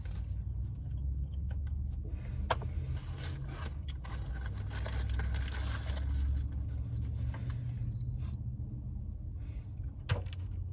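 Steady low rumble of a car heard from inside the cabin, with scattered light clicks and rustling and one sharper click about ten seconds in.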